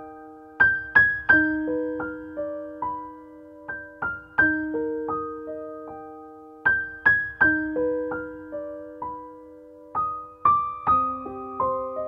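Slow, soft background piano music: single notes struck and left to ring out over held low notes, in a gentle phrase that repeats about every six seconds.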